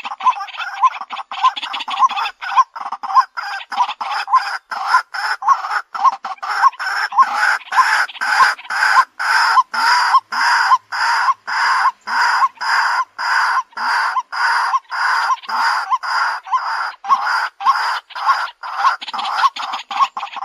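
White-breasted waterhen calling: a harsh, clucking note repeated about twice a second in an unbroken series, the bird's territorial call used as a lure.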